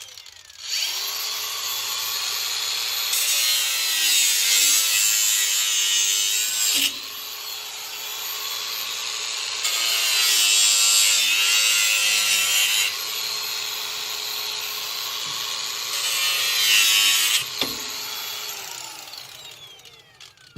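Cordless angle grinder running under load, cutting a PTO drive shaft: a steady high whine with cutting noise that swells and eases, the pitch dipping as the wheel bites. It stops about seventeen seconds in and spins down.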